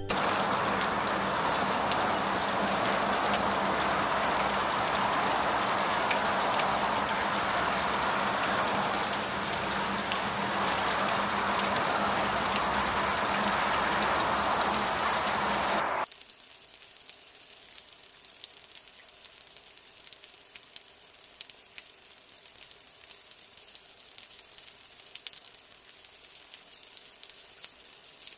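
Rain sound effect: steady heavy rainfall that cuts suddenly about sixteen seconds in to a much quieter, lighter rain hiss with faint scattered drop ticks.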